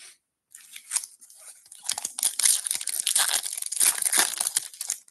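Foil wrapper of a Topps baseball card hobby pack being torn open and crinkled by hand: a light rustle, then loud crackling tearing from about two seconds in that stops just before the end.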